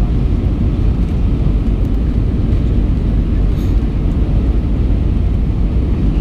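Steady, deep cabin noise of an Airbus A319 in flight: engine and airflow rumble heard from inside the passenger cabin.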